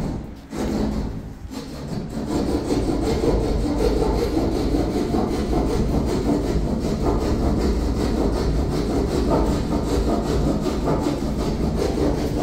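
Hand saw cutting an opening in the ceiling board for an exhaust fan, with steady rapid rasping strokes that settle in about two seconds in.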